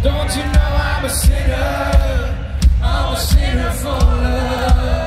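Live rock band playing loud, with male lead vocals sung over a steady drum beat and cymbals.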